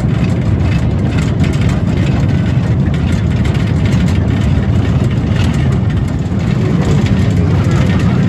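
Steady rumble and clatter of a narrow-gauge field railway train running along its track, heard from aboard an open passenger wagon.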